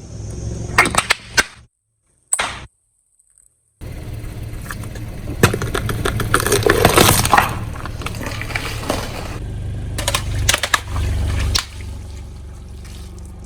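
A car's tyre rolling over and crushing objects: crackling, snapping and crunching over the low rumble of the car. It comes in several cut-together clips, with a second or two of silence about two seconds in.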